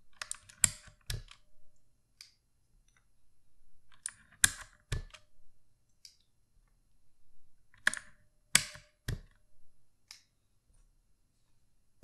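Keycaps being pulled off a Redragon Kumara K552 mechanical keyboard with a wire keycap puller, making sharp plastic clicks. The clicks come in three bursts of two or three, about a second in, about four and a half seconds in and about eight and a half seconds in, with a few faint ticks between.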